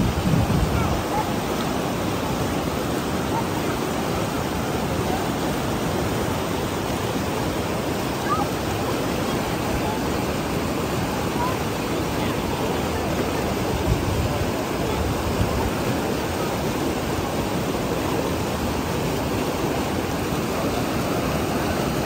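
Elbow River rapids rushing over rocks: a loud, steady rush of churning white water.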